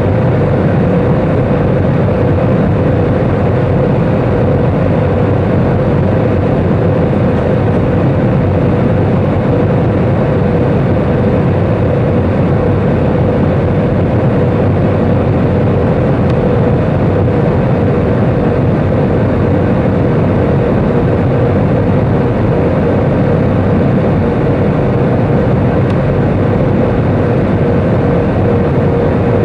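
Cabin noise of an Airbus A320 airliner on approach: a steady roar of engines and rushing air heard from a window seat over the wing, with a steady hum-like tone running through it.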